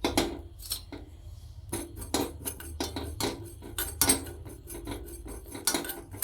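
Metal spoon clinking and scraping against a small metal pan, stirring ajwain seeds as they dry-roast. The clinks come irregularly, about three a second, some with a short metallic ring.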